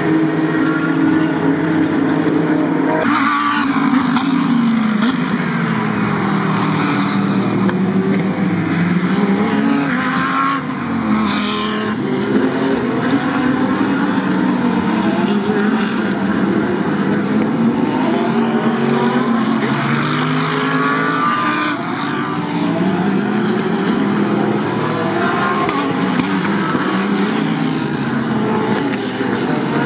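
GT3 race car engines running hard as several cars pass through a corner in a line, their pitch sweeping up and down again and again as they brake, downshift and accelerate away.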